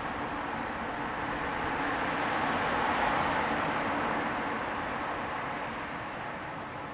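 A passing vehicle, heard as a steady rushing noise that swells about three seconds in and fades towards the end.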